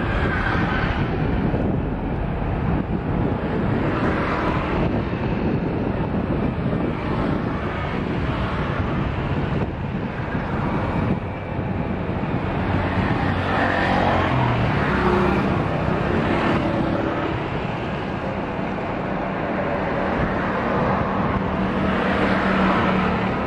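Airbus A330-300 with Rolls-Royce Trent 700 engines at takeoff thrust: the jet rolls down the runway, lifts off and climbs away. The engine noise is steady and continuous.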